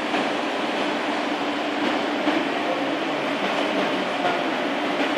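Steady rushing noise of ventilation and machinery, with a low steady hum under it.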